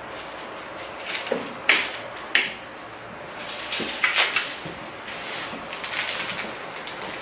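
Kitchen clatter: a few sharp knocks and clinks as utensils and containers are handled and set down on the counter, the loudest about two seconds in and again around four seconds.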